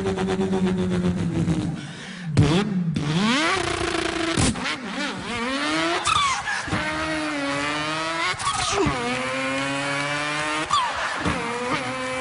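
A man imitating a car engine with his voice: a held engine note that dies away, then revving up repeatedly in rising pitch sweeps, each one breaking off and dropping back like shifting up through the gears.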